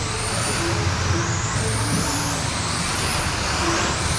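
Radio-controlled sprint cars running laps on a dirt oval: their motors make high whines that rise and fall as the cars speed up and pass, over a steady background of tyre and track noise.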